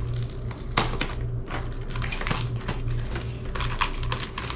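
Small sewing-kit accessories and their packaging being handled: an irregular run of light clicks and rattles over a steady low hum.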